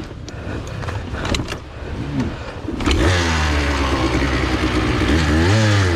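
Enduro dirt bike engine catching about halfway through after a few knocks and scuffs, then running steadily, with a short blip of the throttle near the end.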